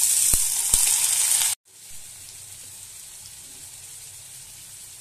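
Chopped bitter gourd and onion hitting hot oil in a steel karahi: a loud sizzle with two sharp knocks in the first second and a half. The sizzle cuts off abruptly, then a quieter, steady sizzle carries on as they fry.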